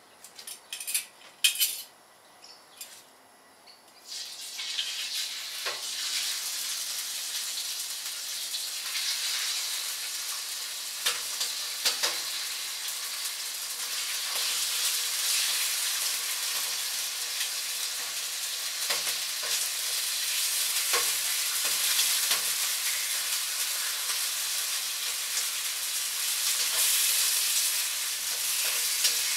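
Chicken going into hot oil in a wok about four seconds in, then frying with a steady loud sizzle, with occasional clicks of stirring. A few sharp knocks come before the sizzle starts.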